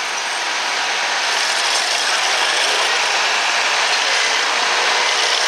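Oliver 1650 tractor working hard under load as it drags the pulling sled down the track: a steady, dense mechanical noise that grows a little louder. From the way it runs, the announcer takes it for a diesel.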